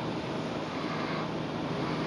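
A car driving slowly through flood water on a street: a steady rush of water pushed aside by its tyres over a low, steady engine hum.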